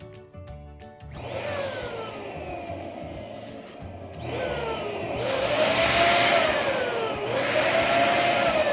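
Air hissing into a balloon as it is inflated, with a whining tone that rises and falls in pitch and grows louder as it goes. Music stops about a second in, just as the hiss starts.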